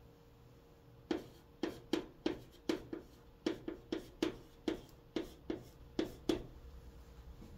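Chalk writing on a chalkboard: a run of short, sharp taps and scrapes, two or three a second, as the strokes of Korean letters are written. It starts about a second in and stops shortly before the end.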